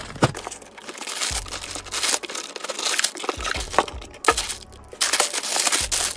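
Cardboard box being torn open, then clear plastic bags of LEGO pieces crinkling and rustling as they are handled, with scattered small clicks. The crinkling becomes louder and denser about five seconds in.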